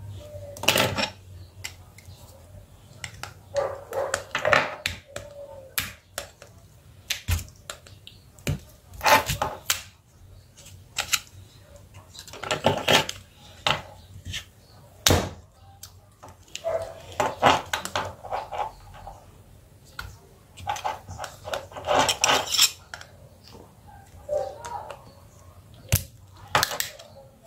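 Small screwdriver scraping, clicking and tapping against the plastic midframe of an Asus Z008D smartphone as it is taken apart, in irregular bursts of scratching with sharp ticks between them.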